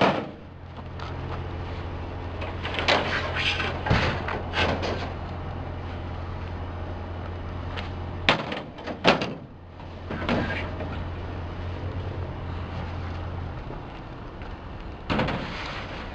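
Pieces of metal store shelving clanking and banging as they are handled and loaded, in several bursts of impacts. Under them a steady low hum runs and stops about three-quarters of the way through.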